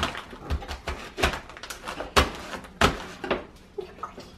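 Irregular knocks and thumps on a wooden kitchen table, about six in four seconds, from a knife cutting bread into cubes on a plastic cutting board and a child patting a bag of brown sugar.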